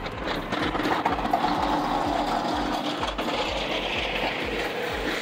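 LS compact tractor's diesel engine running as the tractor drives, a steady rumble with a regular low throb.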